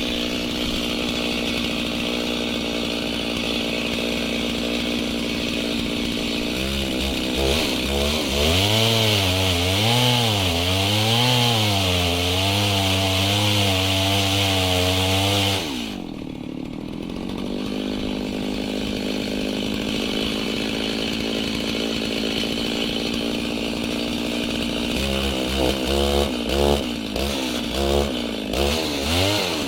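Gasoline chainsaw running in a chainsaw mill, ripping a log lengthwise. The engine's pitch wavers up and down under the cut, sags about halfway through, runs steadier for a while, then wavers again near the end.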